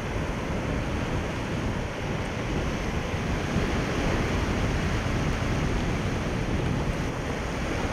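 Sea surf and waves washing in a steady rushing noise.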